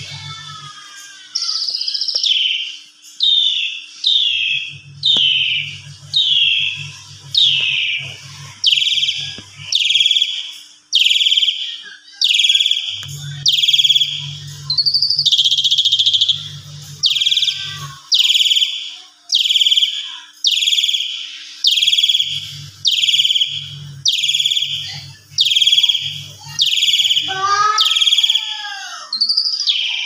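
Caged pied starling (jalak suren) calling over and over, about one loud downward-sliding call a second, in its excited 'mompa' display of puffing up and calling.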